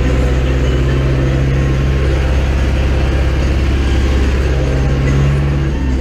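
Zetor 6340 tractor's diesel engine running steadily under load, heard from inside the cab, its note changing slightly near the end.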